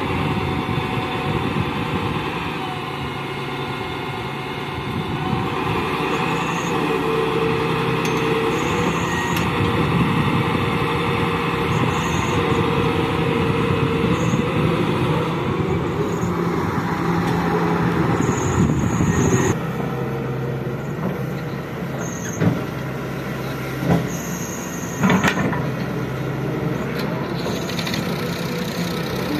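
Daewoo wheeled excavator's diesel engine running under load as the hydraulics swing and raise the bucket, then easing back toward idle about two-thirds through. A few sharp metallic knocks follow near the end as the bucket comes down.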